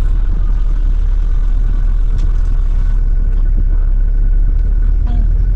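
Cabin noise of a Kiira Motors Kayoola bus on the move: a steady low rumble of road and drive noise, with a faint steady whine above it.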